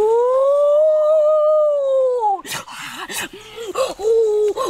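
A long howling animal call that rises, holds for about two seconds and then falls away, followed by a few short, broken calls of the same voice.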